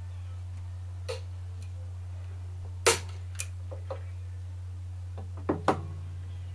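Hand-held staple gun firing staples through upholstery fabric into a wooden stool-seat frame: sharp clacks, the loudest about three seconds in, with lighter clicks around it and a close pair near the end. A steady low hum underneath.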